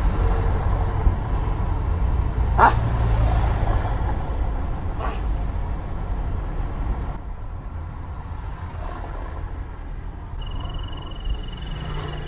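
Steady low background rumble of street traffic, with a short sharp cry about two and a half seconds in. Near the end a high, evenly warbling electronic tone sets in.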